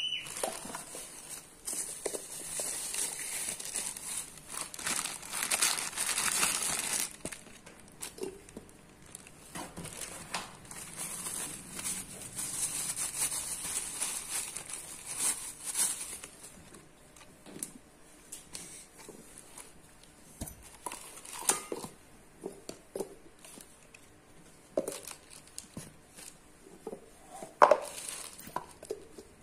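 Thin plastic packaging bags crinkling and rustling as a mixer grinder's plastic jar lids are unwrapped, dense for about the first half. Then quieter handling with scattered light knocks, and a sharper knock near the end as a lid is set on a steel jar.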